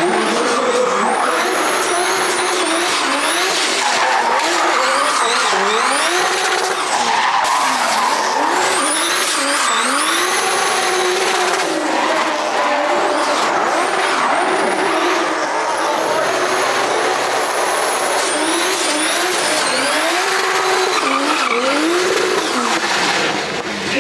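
Drift car's engine revving hard and falling back again and again, with its tyres squealing and screeching through long sideways slides.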